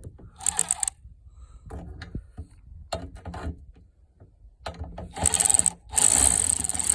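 Battery-powered ratchet running in short bursts: a brief whir about half a second in, then a louder, longer run near the end, with scattered clicks of the socket and tool in between.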